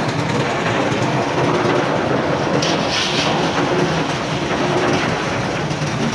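Papad-making machinery running steadily, with a short hiss about two and a half seconds in.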